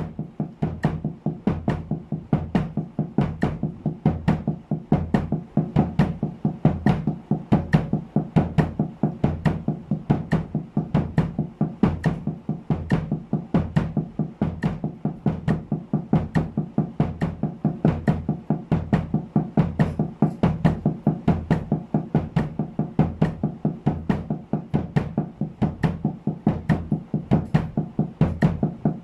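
Drumsticks playing a steady stream of sixteenth-note double strokes on a towel-damped snare drum at 70 bpm, with bass-drum kicks on the last two sixteenths of each beat.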